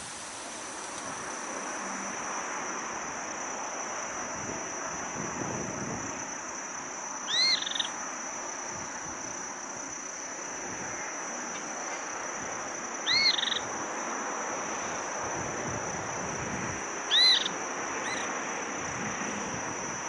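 Three short, loud, rising-and-falling whistled animal calls, a few seconds apart, over a steady high-pitched tone and outdoor hiss.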